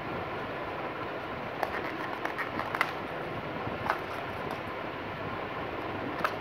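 A cardboard phone box and its inner tray being handled by hand: scattered light taps and rustles, the sharpest about three seconds in and again near the end, over a steady background hiss.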